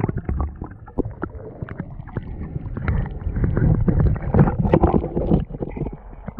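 Muffled underwater sound from a submerged camera: water movement and bubbling with a dense scatter of small clicks and knocks, busiest in the middle of the stretch.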